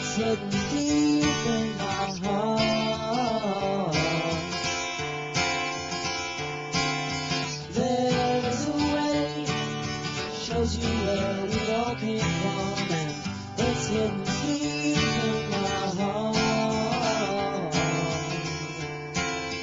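Background music led by a strummed guitar.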